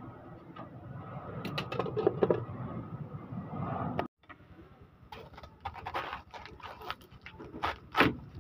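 A metal lid clattering onto an aluminium stockpot of boiling soup. Then a knife crunching through a head of cabbage on a wooden chopping board in several strokes, the loudest near the end.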